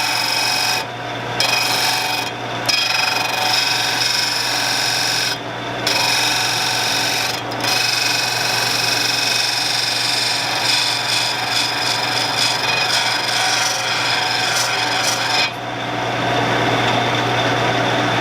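Steel lathe tool being ground against an abrasive wheel on a running Shopsmith, a steady rasping grind over the motor hum. The grind breaks off briefly a few times as the tool is lifted, then stops near the end while the motor keeps running.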